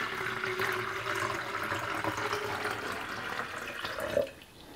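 Water pouring in a steady stream from a plastic tub into a hollow 3D-printed PLA form as it fills. The pour stops about four seconds in.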